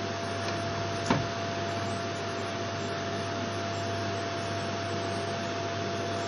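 Vacuum cleaner running steadily on a wooden floor, a constant rushing noise with a steady whine and low hum. A single sharp knock about a second in.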